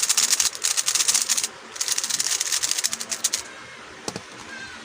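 A 3x3 speedcube being turned fast: dense, rapid plastic clicking of the layers in two runs with a short break between, stopping a little past halfway, followed by a few single clicks.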